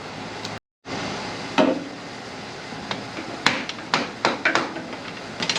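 Sharp metal knocks and clinks, about half a dozen spaced irregularly over a few seconds, as the bolted lift-cylinder cover of a Ford 1710 tractor is worked loose. A brief cut to silence comes just under a second in.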